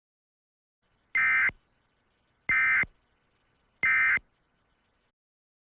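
Emergency Alert System end-of-message code: three short, identical bursts of warbling digital data tones, about 1.3 seconds apart, marking the end of the alert broadcast.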